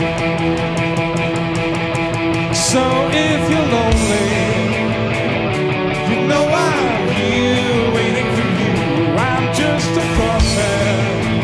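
A rock band playing live: electric guitars strumming chords over drums with steady cymbal ticks, and a voice singing in from about three seconds in.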